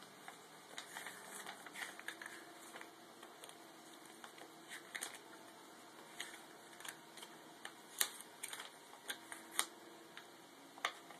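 Faint rustling and flicking of paper as the pages of a small booklet are turned by hand, a scatter of soft crinkles and short clicks.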